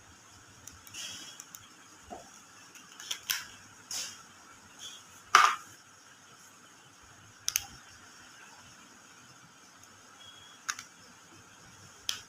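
Scattered sharp clicks and short rustles from handling a smartwatch and its packaging, the loudest click about five seconds in.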